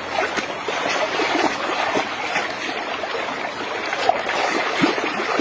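Water sloshing and splashing irregularly as a muddy plastic toy vehicle is scrubbed and swished by hand in a container of water.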